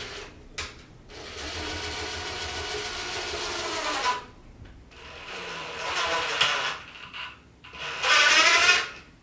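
Cordless drill driving long self-tapping wood screws through plywood into a wooden post, the motor running in three separate bursts. The last burst, about eight seconds in, is the loudest.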